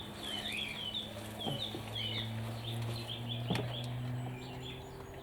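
Small aviary birds chirping: many short, high chirps that each drop in pitch, coming in quick runs, over a steady low hum.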